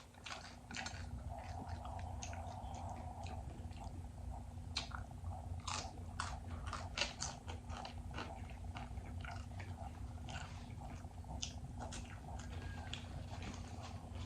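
Close-miked chewing of cheesy Doritos nachos: irregular crunching and wet mouth clicks, over a steady low hum.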